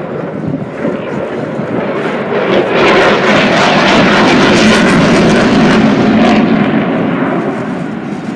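A fixed-wing aircraft flying past, its engine noise swelling to a peak about three seconds in and fading away near the end.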